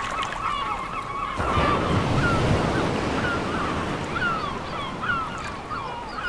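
Surf washing onto a beach, swelling about a second and a half in, with seagulls giving a string of short calls, about one or two a second.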